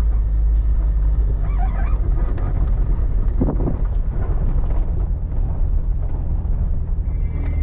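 Steady low rumble of a 4x4 vehicle running, heard from inside the cab, with a few faint knocks.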